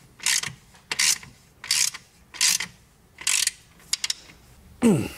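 Hand ratchet wrench being worked in short strokes on a rear suspension nut, each back-swing giving a quick burst of ratchet clicks, about one every three quarters of a second. Near the end comes a short, louder sound falling in pitch.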